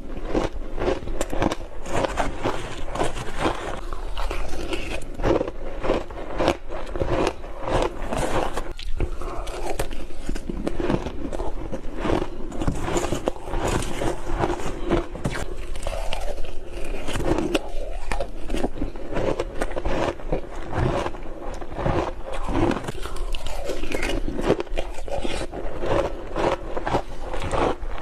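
Close-up bites into crunchy ice coated with matcha and milk powder: a quick, continuous run of crunches and crackles as the ice breaks between the teeth.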